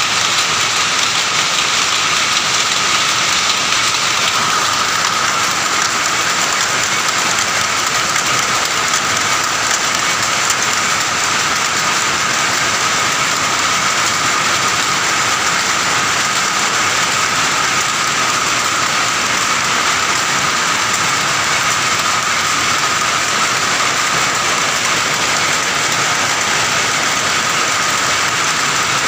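Many power looms running together: a loud, dense, steady clatter, with a thin high whine running under it.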